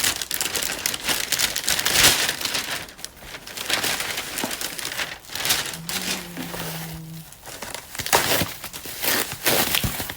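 Plastic delivery bag and food packaging crinkling and rustling in irregular bursts as it is unwrapped, loudest about two seconds in.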